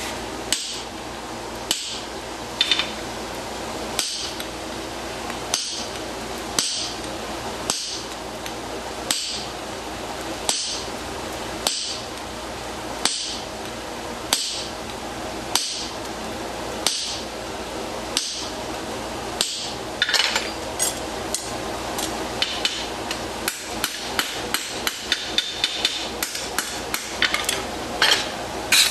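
Blacksmith's hammer striking hot steel on an anvil, scoring X's into the toe bar's welding surface, which also knocks the scale off before fluxing. Single blows come about every second and a bit, then from about twenty seconds in a quicker run of lighter taps.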